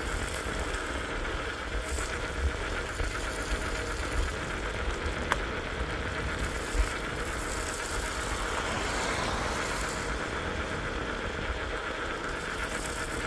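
Small e-bike riding along: steady tyre and wind noise, with a low rumble of wind on the microphone and a sharp click about five seconds in.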